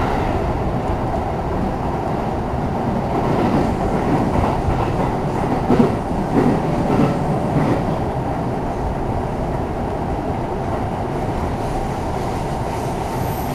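E233-series electric commuter train running at speed, heard from inside the car: a steady rumble of wheels on rail, with a few faint wheel clicks over rail joints in the middle.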